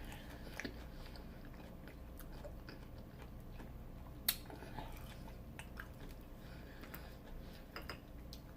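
A person chewing crunchy Hot Cheeto-breaded fried food with the mouth close to the microphone: scattered small crunches and clicks, one sharper crunch about four seconds in.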